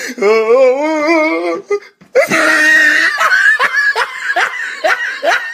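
A voice holding a wavering, warbling note for about two seconds, then a brief break and a run of rapid, high laughter.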